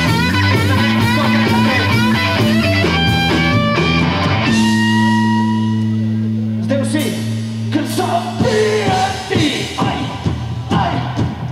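Live rock band playing: quick electric guitar runs, then a held chord that rings and fades from about four and a half seconds in, before the band picks back up near the end.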